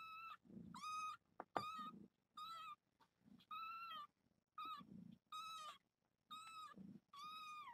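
Grey kitten, about eleven days old, mewing over and over in high, thin cries, about one a second. These are the calls of a kitten apart from its mother and unable to find her by smell.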